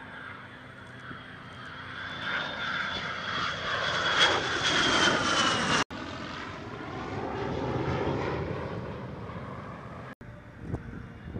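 F-22 Raptor and P-51D Mustang flying past together in formation: steady aircraft engine noise with a high whine that dips slightly in pitch. It grows louder to a peak about five seconds in, then breaks off abruptly twice, swelling again in between.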